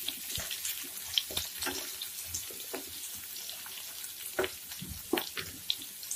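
Chopped onion frying in hot mustard oil in a nonstick pan: a steady sizzling hiss with scattered crackles and pops as the onion browns, stirred now and then with a spatula.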